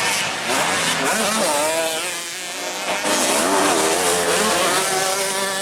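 Racing dirt bike engines revving up and down, several at once, as the motorcycles race around the grass track.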